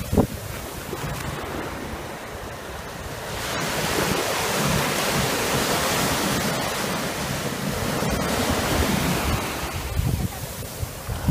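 Small waves breaking and washing up a sandy beach, with wind buffeting the microphone; the surf swells louder about four seconds in.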